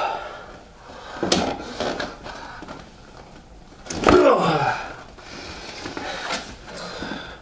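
Hands working a small cardboard box: a few short knocks and rustles, and about four seconds in a louder creaking scrape that falls in pitch.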